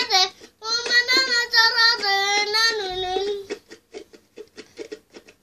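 A young boy singing a long, wavering melody, then strumming a small plastic toy guitar in a quick run of thin strums for the last two seconds or so.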